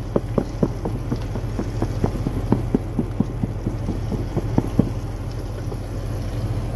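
Chicken legs in flour knocking inside a lidded plastic tub as it is shaken, about four knocks a second, stopping about five seconds in. A steady low hum runs underneath.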